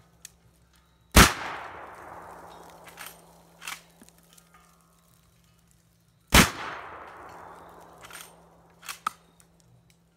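Two .45-70 rifle shots about five seconds apart, each with a long, echoing tail. A few lighter clicks sound between the shots.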